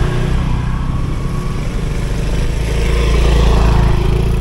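Small motor scooter engine running with a steady low drone, swelling a little about three seconds in.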